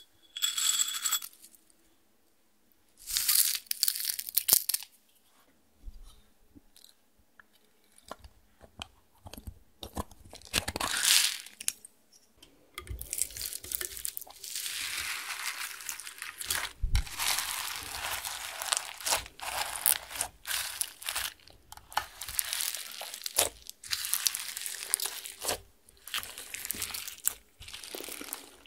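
Sequins shaken out of a small glass jar in a couple of short rattling pours, then hands folding and pressing clear slime loaded with beads, glitter and crushed eyeshadow. The slime gives a long, dense run of clicking, crackling and squishing.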